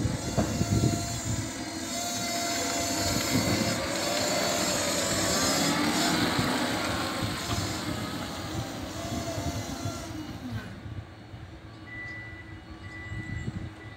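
25 hp electric compact tractor's motor whining, its pitch gliding up and down, with the steel slurry scraper grating and knocking over wet concrete. It is loudest as the tractor passes close and fades as it moves away, leaving a faint repeated high beep near the end.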